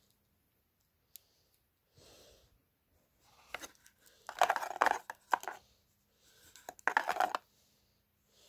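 Cardboard box and paper insert being handled: two short bursts of crackly rustling and scraping, about four seconds in and again about seven seconds in, with softer rustles between.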